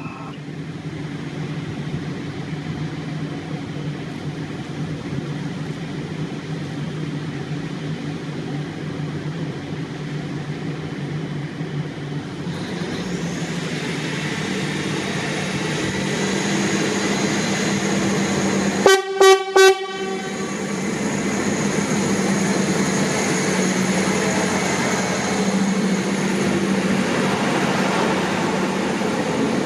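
Train running and drawing closer, growing louder, with three short blasts of its horn about two-thirds of the way through.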